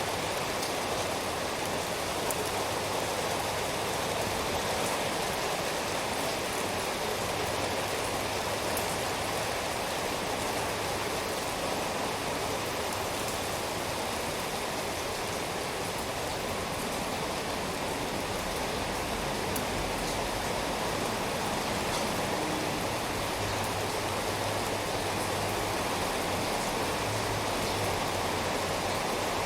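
Steady rain falling, an even hiss of many drops, with faint scattered drop ticks.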